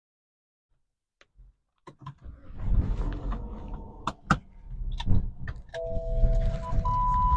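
Silent for about the first second and a half, then a few sharp clicks over low rumbling street noise. Near the end a two-note electronic chime sounds: a lower note, then a higher one, each held steady.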